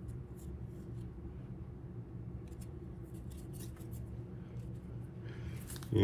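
Faint rustling and soft clicks of trading cards being handled and slid across a wooden table, over a steady low hum.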